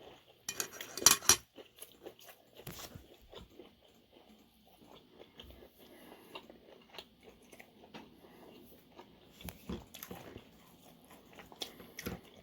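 A person biting and chewing crunchy fried calamari close to the microphone. A burst of loud crunches comes about a second in, followed by quieter, intermittent chewing.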